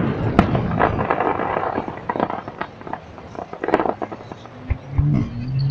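Fireworks display: aerial shells bursting with dense crackling through the first couple of seconds, then a few scattered bangs. A person's voice comes in near the end.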